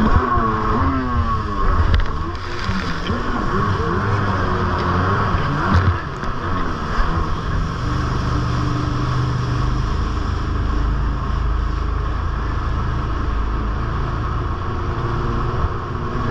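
Jet ski engine running at speed with water rushing and spraying off the hull. Its pitch swings up and down as the craft rides over boat wakes, then holds steadier from about eight seconds in.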